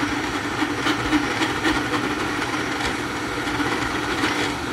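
Kidoodle MiniBox A1 FDM 3D printer printing in high-speed mode. Its fans run steadily, and the moving axes add a wavering hum with irregular clicks and grinding sounds.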